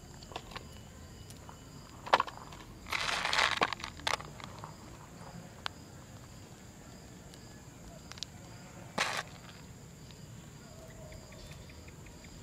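Quiet hand-handling sounds as chocolate chips are sprinkled into plastic tubs of ice cream: a few light clicks about two and four seconds in, and short rustles around three seconds and again near nine seconds. A faint steady high-pitched insect hum lies underneath.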